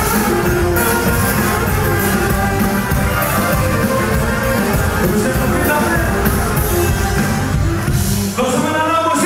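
Loud live music with singing at a club concert, captured from among the crowd. Shortly before the end the bass drops out briefly, leaving the voices and higher instruments.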